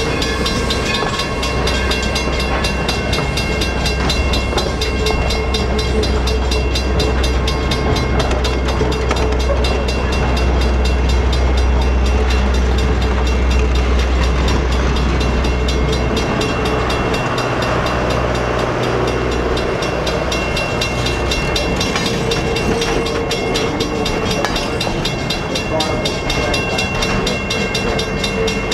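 New Hope & Ivyland excursion train, hauled by 2-8-0 Consolidation steam locomotive No. 40, running by with a steady heavy low rumble that turns uneven a bit over halfway through. Some thin steady ringing tones sound above it.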